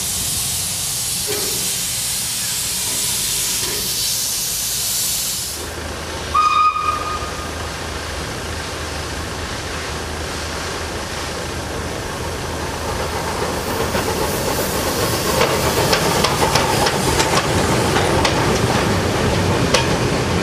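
Steam locomotive 141 TD 740, a French 2-8-2, hissing steam while standing. About six seconds in comes one short, loud blast of its steam whistle. In the last third the train passes close by, its steam and noise rising, with many sharp clicks from the wheels on the track.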